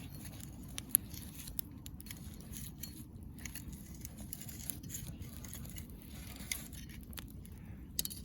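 Wood fire crackling in a fire pit: scattered sharp pops and ticks over a low steady rumble, with the loudest pop about a second in.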